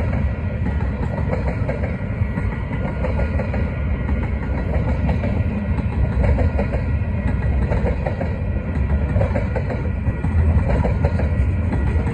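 Freight cars of a mixed manifest train, covered hoppers, boxcars and tank cars, rolling past at speed: a steady rumble of steel wheels on the rails, heaviest in the low end.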